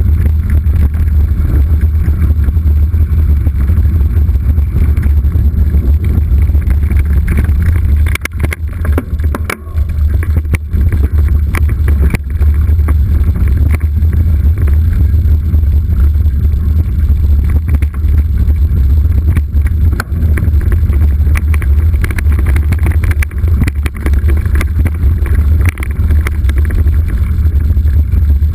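Mountain bike descending a rough trail, heard through a bike- or helmet-mounted action camera: a constant low rumble of wind buffeting the microphone, with scattered knocks and rattles from the bike over the ground. It eases briefly about eight seconds in, then picks up again.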